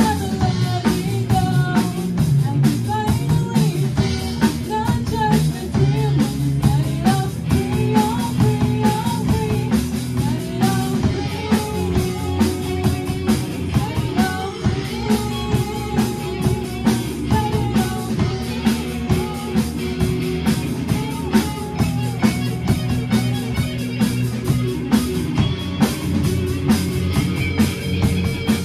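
Young rock band playing live: a girl singing lead over electric guitars and a drum kit keeping a steady beat. Near the end the singing stops and the band plays on.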